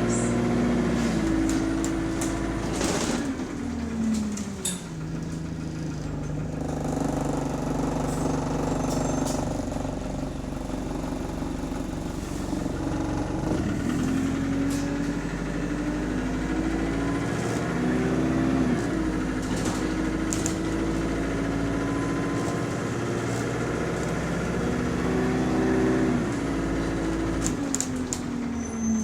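Single-deck bus's diesel engine and automatic gearbox heard from on board, pulling away and accelerating. The pitch climbs, then drops at each gear change, several times, with the odd rattle from the body. The uploader reports this engine as having a rod knock.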